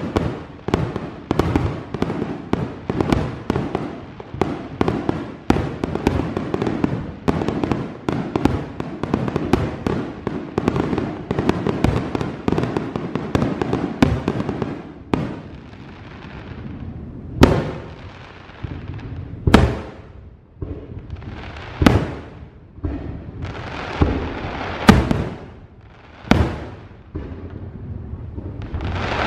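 Fireworks display: a dense, rapid run of bangs and crackling for about the first half, then separate loud booms every two seconds or so, each with a rumbling echo.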